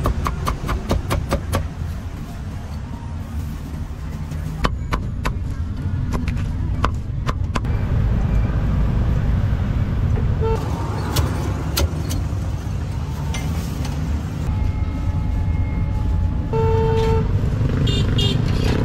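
Steady rumble of street traffic, with runs of sharp, quick knocks of a cleaver chopping roasted meat on a wooden board, fastest at the start and again about five to seven seconds in.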